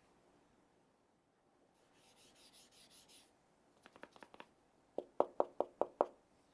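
A mechanical keyboard handled by hand: a brief rubbing or sliding sound, then a few light clicks, then a quick, even run of six sharper clacks as keys are pressed.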